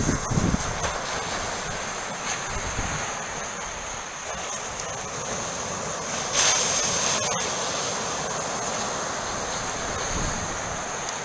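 Surf breaking on a sandy beach, a steady rush that swells a little about six seconds in, with wind buffeting the microphone and a steady high-pitched whine underneath.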